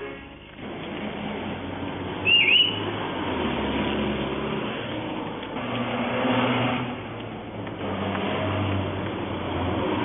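City street traffic: cars and vans driving past, with the noise swelling and easing as they pass. A short, sharp high chirp, like a whistle or a bird, cuts through about two seconds in.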